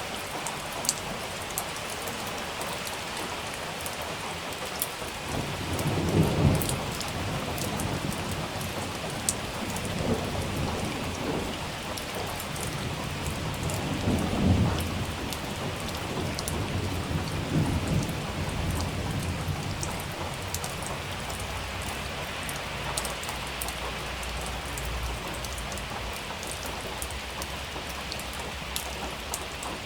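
Steady heavy rain with sharp drops pattering on a surface, and rolling thunder rumbling through it. The thunder comes in about five seconds in, peaks twice, then fades to a low rumble.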